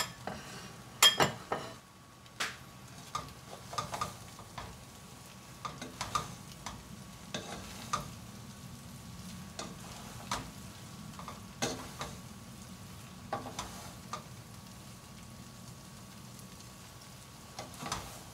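Two wooden spoons tossing spaghetti and salmon in cream sauce in a nonstick pot: irregular knocks of wood against the pot, loudest about a second in, over a steady low hum.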